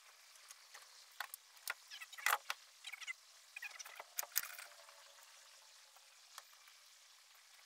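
Faint, scattered clicks, knocks and rattles of hands working among wiring and parts in a boat's battery compartment, with the loudest knocks about two and four seconds in.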